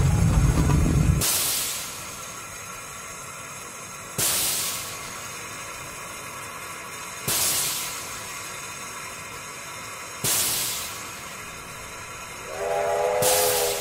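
Steam hissing out in sharp bursts, five in all, about every three seconds, each fading quickly, as if vented from the machine's pistons. A deep low rumble cuts off about a second in, and near the end a chord-like steam whistle starts up.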